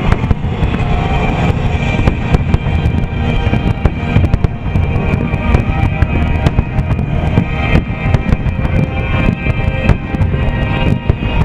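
Aerial firework shells bursting again and again, with deep booms and sharp cracks, over loud music played for the synchronised show.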